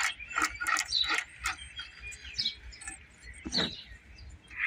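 Birds chirping, with a few short, sharp clicks in the first second and a half, one more click about three and a half seconds in, and quieter stretches between them.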